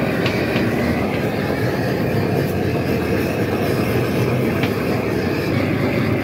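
Hose-fed gas blowtorch burning steadily with a loud, even rushing noise as its flame is played over cheese to melt it.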